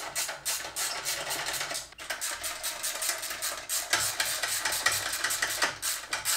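Ratchet clicking rapidly as screws are backed out of a turbine casing, a fast even run of metallic clicks about ten a second, with a short pause about two seconds in.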